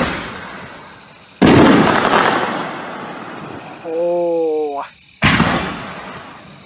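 Aerial firework shells from a demo video of Giant Panda 6-inch XXL canister shells bursting in the sky, each break a sudden loud boom trailing off over a second or so, heard about four times. A short held voice-like call comes about four seconds in, and a faint steady high whine runs underneath.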